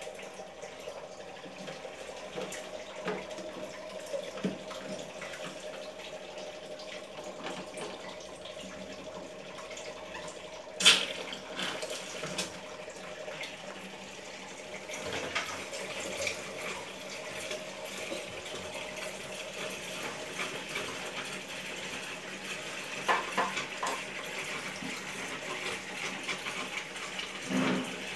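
Steady running water with the small clicks and knocks of plastic purifier parts being handled, and one sharp knock about eleven seconds in.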